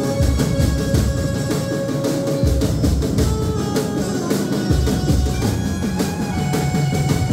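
Loud music with a steady drum beat, heavy bass and a held melody line.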